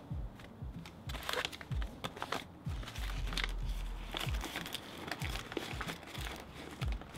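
Crumpled paper crinkling and rustling in the hands as a wrapped paper packet is handled and unfolded, in irregular crackly bursts, with soft low thumps scattered through.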